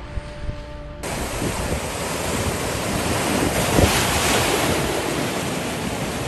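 Sea waves surging and breaking against a shoreline rock, a loud rushing wash of surf. It cuts in suddenly about a second in and swells to its loudest near the middle.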